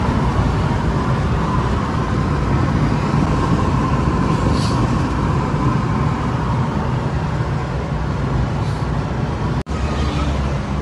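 Steady road and engine noise inside a moving car's cabin at highway speed, a constant rumble and hiss, broken by a brief gap near the end.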